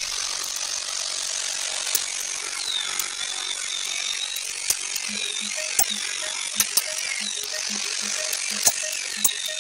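An angle grinder with a cut-off disc runs while cutting a perforated steel sheet. Its whine drops in pitch and recovers several times as the disc bites into the metal, with sharp ticks along the way.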